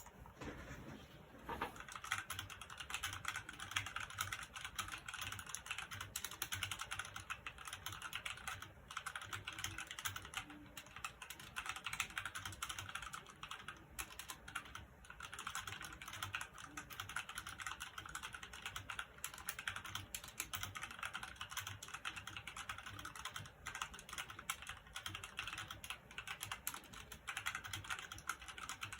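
Fast, continuous typing on a Redragon Kumara K552 mechanical keyboard with linear red switches, keys clacking in quick irregular runs that begin about a second and a half in, with a few brief pauses.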